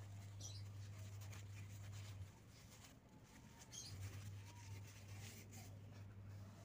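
Near silence: a faint steady low hum that drops out for a moment about two seconds in, with a few faint, short high chirps.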